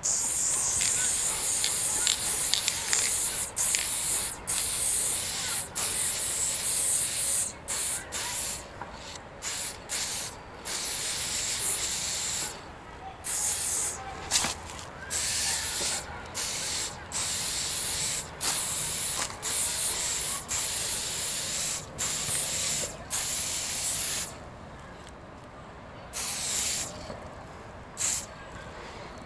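Spray hissing from a nozzle in repeated bursts, each half a second to a few seconds long with short breaks between. It stops about 24 seconds in, with two short bursts near the end.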